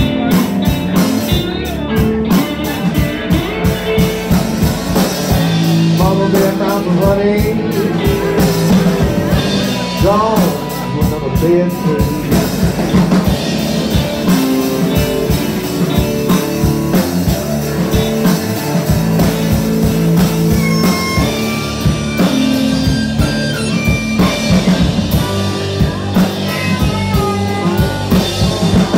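Live blues band playing: electric guitar and a second guitar over a drum kit, with a steady beat.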